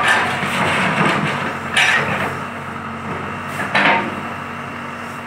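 JCB backhoe loader's diesel engine running steadily, with two loud knocks about two seconds apart, one near two seconds in and one just before four.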